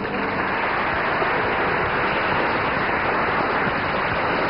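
Audience applauding steadily, starting just as the speaker finishes a heartfelt sentence.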